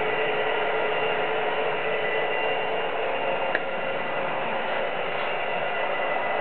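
Steady whirring hiss of HO-scale model trains running, with several steady whining tones, and a single click about three and a half seconds in.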